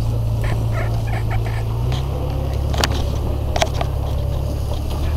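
Jeep Cherokee engine running under load on an off-road hill climb, its low drone changing pitch about two seconds in, with two sharp knocks near the middle.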